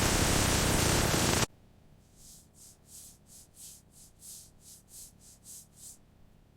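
Loud steady hiss that cuts off suddenly about a second and a half in, followed by a run of about a dozen short, faint, high hissing puffs, roughly three a second, that stop about a second before the end.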